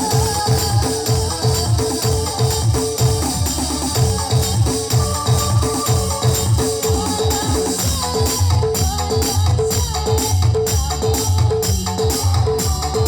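A band playing music through a sound system at a sound check, with heavy bass and percussion keeping a fast, steady beat.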